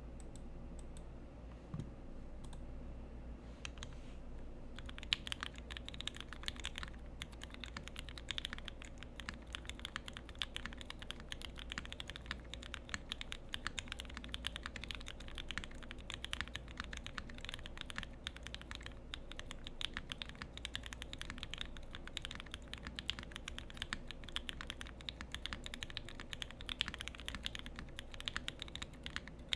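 Typing on a Parallel Portal custom mechanical keyboard with lubed and filmed Gateron Ink Black v2 linear switches, GMK keycaps and an FR4 plate. A few scattered keystrokes, then about five seconds in, fast continuous typing.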